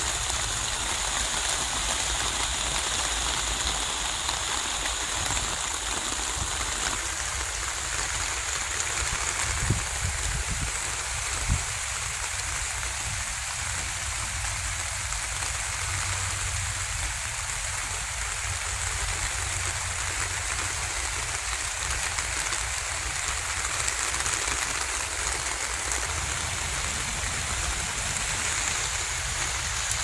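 A steady, even hiss like rain or running water, with two soft low thumps near the middle.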